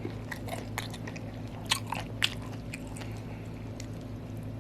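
A person chewing crunchy boiled octopus close to the microphone, with a few sharp wet clicks and crunches over a steady low hum.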